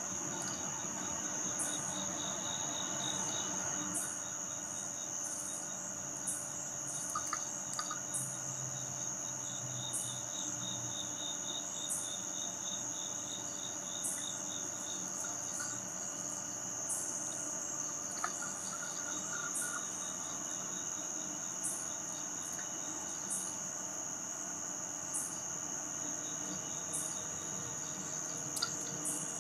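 Night chorus of crickets and other insects: one steady high trill, a faster pulsing chirp beneath it, and short high rasping calls repeating every second or two.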